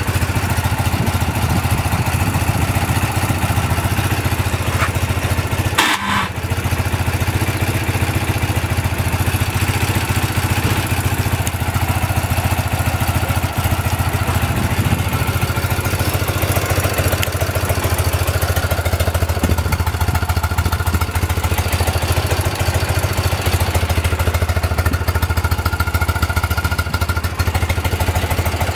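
1978 BMW R100S's air-cooled 980 cc flat-twin boxer engine idling steadily.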